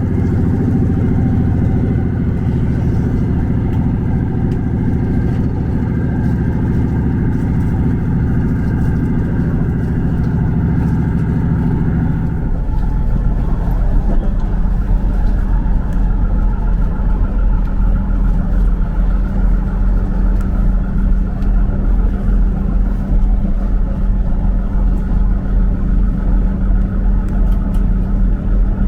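Diesel multiple-unit train running, heard from inside the carriage: a steady engine hum that changes about twelve seconds in to a deeper, slightly louder rumble.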